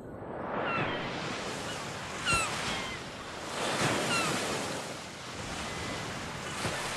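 Ocean surf washing in swells that rise and fall every second or two, with a few short high chirps sliding down in pitch over it.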